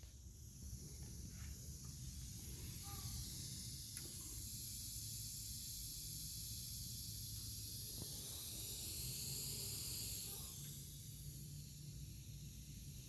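A steady hiss that swells over the first few seconds and eases off about ten seconds in, over a low rumble.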